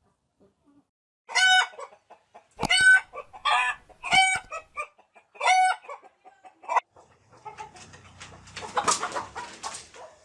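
A chicken squawking loudly, five or six short harsh calls about a second apart, followed by a few seconds of noisy rustling.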